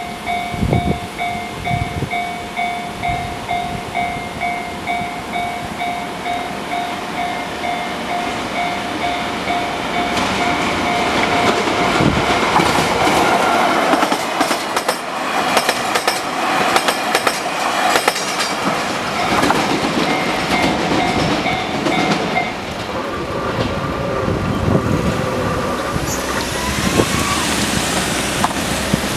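A Japanese level-crossing warning bell rings in a rapid, steady repeating pattern. About a third of the way in, a freight train begins passing over the crossing, its wheels clattering over the rail joints. The bell stops about three-quarters of the way through, while the train noise carries on.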